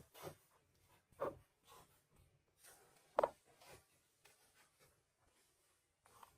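Light scraping and rubbing from building materials being handled, with two sharper knocks, one about a second in and one about three seconds in.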